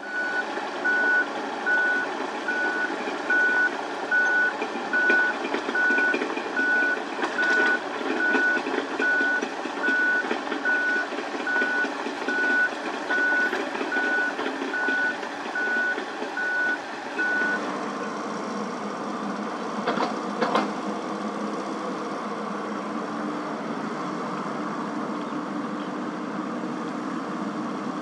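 Komatsu PC78US mini excavator's diesel engine working, its level rising and falling, while the travel alarm beeps at one pitch about one and a half times a second, which signals that the machine is moving on its tracks. The beeping stops about two-thirds of the way in, the engine settles to a steadier run, and two sharp knocks follow shortly after.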